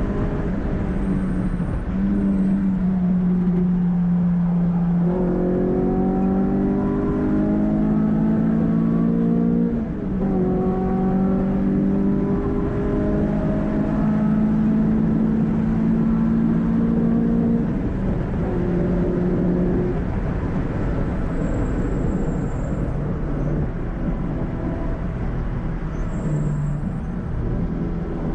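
Renault Clio 182's 2.0-litre four-cylinder engine, breathing through a cone filter intake, running hard at track speed as heard from inside the cabin. Its pitch holds steady for stretches, with several sudden changes in pitch.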